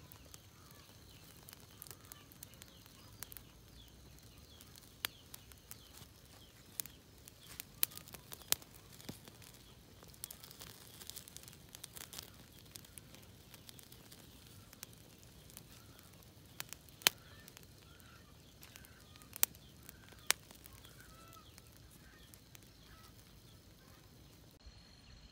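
Small open fire of dry sugar-cane leaves and stalks burning, crackling with sharp, irregularly spaced pops over a soft, steady hiss of flame.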